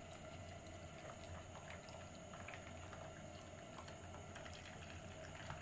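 Near silence: faint room tone with a steady low hum and a few faint ticks.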